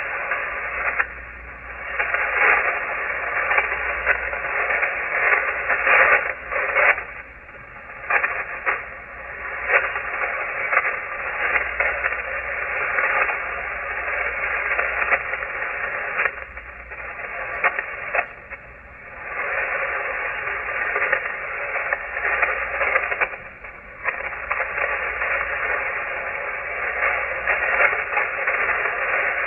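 Shortwave receiver tuned to 7233 kHz on the 40-meter ham band, giving out steady hiss and crackling static with no voice on the frequency. The noise swells and fades, dropping away briefly several times.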